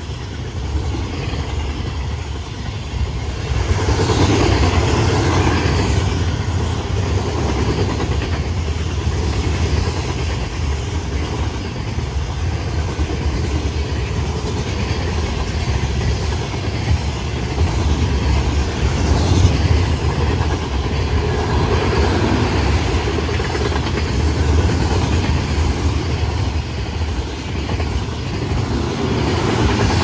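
Freight cars of a Union Pacific manifest train rolling past: a steady low rumble of wheels on rail, with swells of clatter a few seconds in and twice more in the last third.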